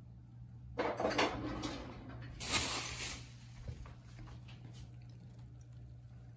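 Kitchen handling noises: short clatters and rustles about a second in, and a louder rush of noise lasting under a second about two and a half seconds in, like a drawer or cupboard being worked, over a low steady hum. A lime half is then handled for squeezing in a hand citrus press.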